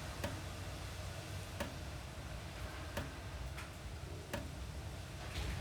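Dripping tap: single water drops falling about once a second, each a short sharp tick.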